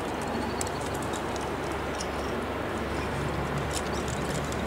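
Steady rushing noise on the microphone, with scattered light clicks and taps.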